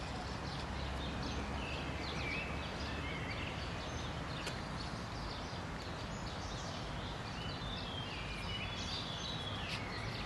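Small birds chirping and twittering here and there over a steady low background rumble.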